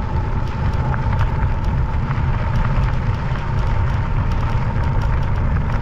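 Wind buffeting and tyre rumble while riding a Jasion EB7 2.0 folding e-bike on a gravel road, with a steady thin whine from the rear hub motor.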